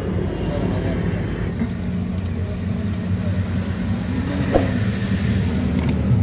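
A truck engine idling steadily, a low even hum, with a few faint clicks from wiring connectors being handled.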